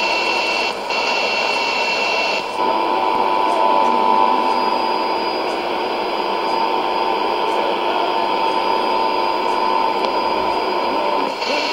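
Weak shortwave AM signal heard through a Sony ICF-2001D receiver's speaker: steady static hiss, with a steady whistle tone that comes in about two and a half seconds in and stops near the end, as the receiver is fine-tuned around the frequency.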